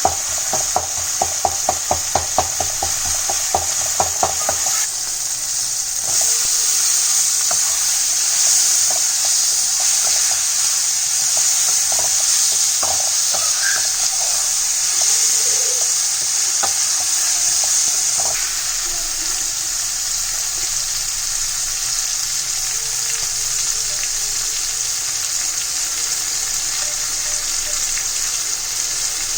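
Food sizzling as it fries in a pan, with a spoon stirring it. Over the first four seconds or so the spoon knocks against the pan in a quick, even run, then only now and then.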